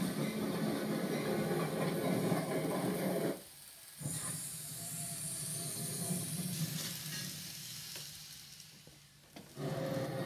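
Real train sound running: a steady, noisy rumble with hiss. It drops out suddenly for about half a second about three and a half seconds in, and fades down then comes back abruptly near the end.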